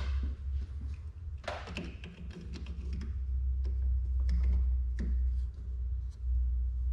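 Scattered light clicks and taps of hands handling parts under a car's hood, over a steady low hum.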